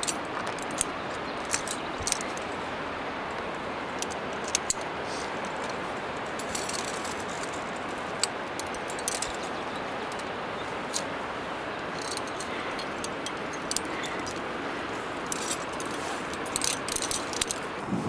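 Climbing hardware, carabiners and quickdraws hanging from a harness, clinking and jangling in short scattered bursts as a climber squirms into a rock crack, over a steady hiss.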